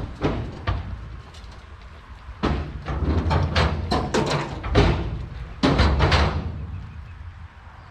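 A rapid run of rattling knocks and clanks, many in quick succession, loudest in the middle and dying away near the end.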